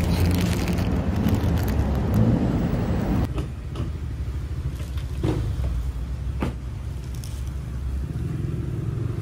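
Steady low rumble of road traffic, louder for about the first three seconds and then quieter, with a few short clicks in the middle.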